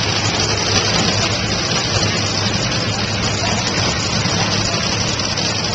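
Top Fuel dragster engines, supercharged nitromethane-burning V8s, idling at the starting line: a loud, steady, heavy rumble with a dense hiss over it.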